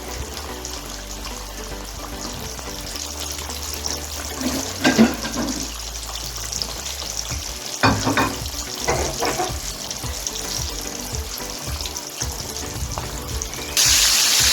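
Chicken wings deep-frying in hot oil: a steady sizzling hiss with a few short knocks about five and eight seconds in. Near the end the sizzle suddenly gets much louder.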